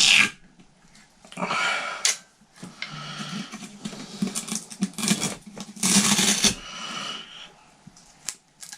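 Handling noise as patch leads are unhooked from guitar pedals on a pedalboard: several short bursts of scraping and rustling, with small clicks in between.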